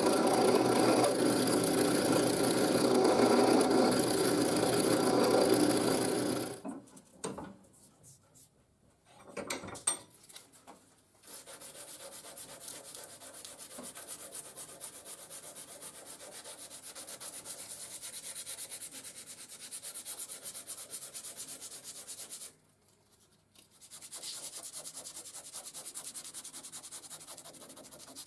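Sandpaper rubbed back and forth by hand over a wooden knife handle: steady rubbing that stops for about a second near the end. Before it, a louder steady noise fills the first six seconds or so and cuts off, followed by a few seconds of near quiet with a few light knocks.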